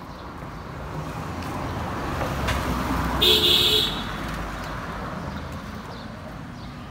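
A car drives past with rising tyre and engine noise, and its horn gives one short toot about three seconds in.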